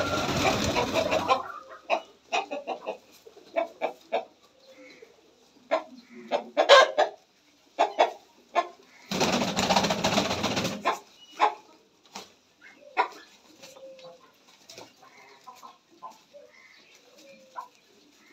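Jacobin pigeons flapping their wings in two noisy bursts, one ending about a second in and a longer one around the middle. Between and after them come short, sharp bird calls and a few faint, low, sliding coos.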